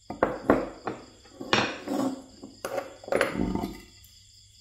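Metallic clinks and rattles of a thin steel rod on a wooden block and concrete floor: a few sharp knocks in the first second, then two longer rattling scrapes.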